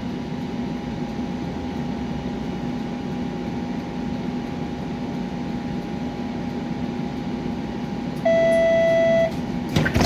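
Steady hum inside a streetcar, with a faint steady whine above it. About eight seconds in, a loud electronic beep sounds for about a second, and a short clatter of knocks follows near the end.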